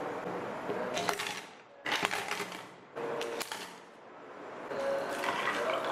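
Ice cubes dropped into a plastic tumbler onto muddled strawberries, clattering in three quick bursts about a second apart.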